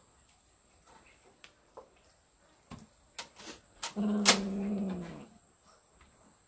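A domestic cat giving one drawn-out call of about a second, steady in pitch and dropping at the end, with scattered light clicks and taps around it.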